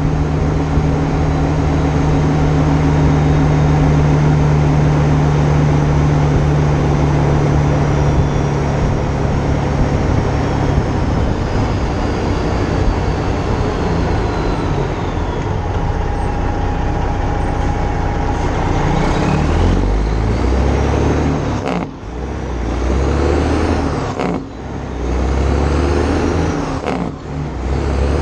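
Freightliner Classic semi's Detroit Diesel engine and exhaust stack running steadily at highway speed, heard from outside the cab with wind rush on the microphone. In the last third the engine pitch changes and the sound breaks off briefly three times, as the truck slows and the driver works through the gears.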